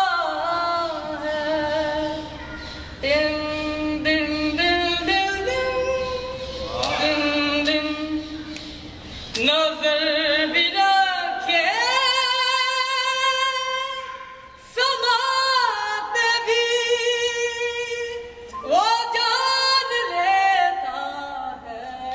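A solo male voice singing an Urdu hamd unaccompanied, high-pitched and female-like: long held, ornamented notes with vibrato, in phrases broken by short breaths. It echoes in a large stone hall.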